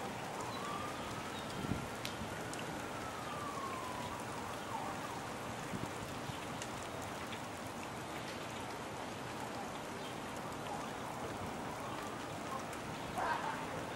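Steady rain falling, with scattered drops ticking close by. A siren wails, its pitch slowly falling, rising and falling again over the first four seconds, and returns faintly near the end.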